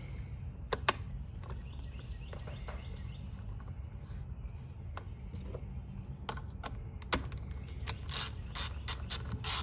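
Hand-tool clicking during work on a string trimmer: scattered light ticks and taps, then from about seven seconds in a run of sharp, regular clicks, two or three a second, much louder than the ticks before.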